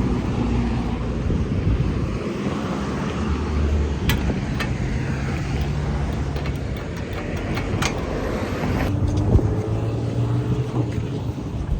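Road traffic: car engines running close by, a steady low hum whose pitch shifts as vehicles move, with a few sharp clicks.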